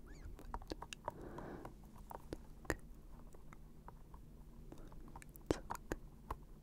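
Close-miked ASMR mouth sounds: soft, wet clicks and pops at an uneven pace, with a brief breathy sound about a second and a half in.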